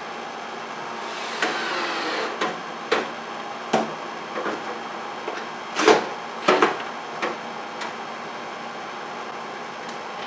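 Metal breaker panel being handled against a plywood backboard: a brief rubbing sound with a rising pitch about a second and a half in, then a scattering of knocks and clunks, the loudest about six seconds in.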